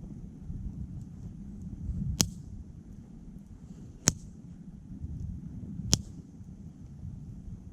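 Firewood burning in a titanium wood stove, giving three sharp pops about two seconds apart over a low steady rumble.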